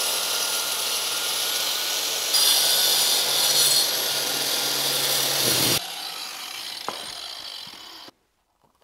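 Handheld power tool with a dust-extraction hose cutting a cable channel into the wall: the motor runs steadily with a rough grinding of the material, gets louder about two seconds in, drops to a quieter run near six seconds, and stops abruptly near the end.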